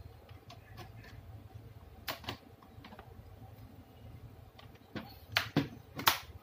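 Sharp clicks and taps of laptop parts being handled during disassembly or reassembly, a couple about two seconds in and several in quick succession near the end, over a faint low hum.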